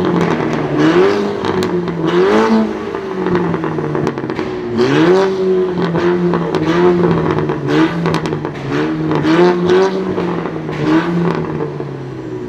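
Car engine with a modified exhaust revving, its pitch jumping up and settling several times in the first five seconds and then holding with small wobbles, with crackles and pops from the exhaust throughout.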